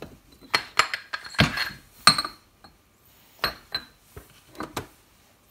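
Steel parts of a lathe headstock spindle (gears, spacers, bearings) being handled and knocked together: about eight sharp metallic clinks and knocks at irregular intervals, with a short pause about halfway through.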